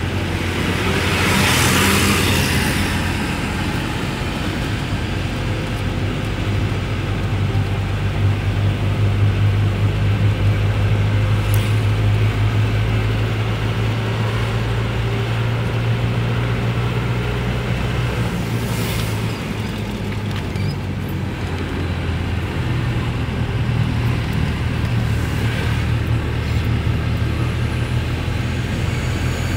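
Car driving on a highway, heard from inside the cabin: a steady low engine and road drone. About two seconds in, a rush of noise swells and fades as a truck is passed.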